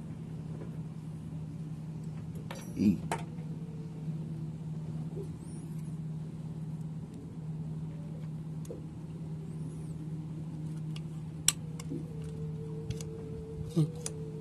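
Small metallic clicks and taps as parts are handled and fitted inside a Bosch inline diesel injection pump housing, the sharpest about two thirds of the way in. Under them runs a steady low machine hum.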